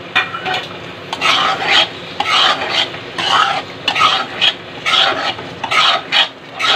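Metal spatula scraping and stirring through thick masala in a kadhai, with a rough scrape about every half second to second starting about a second in. The masala sizzles quietly underneath.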